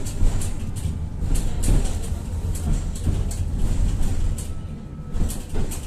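Tatra-Yug K1M tram under way, heard from inside: a steady low rumble of the running gear with frequent irregular knocks and rattles.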